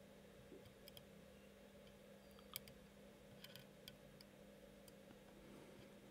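Near silence with a steady faint hum, broken by a handful of faint, sharp clicks from fine tweezers being handled against a circuit board, the most distinct about two and a half seconds in.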